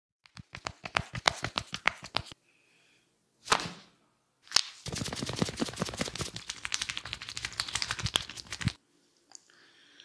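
Hair cracking: crisp, rapid snaps as tufts of hair are gripped and pulled between a barber's fingers, in a quick run in the first two seconds and a denser crackling run from about five seconds to nearly nine. Between them come a brief whoosh and a single sharp snap.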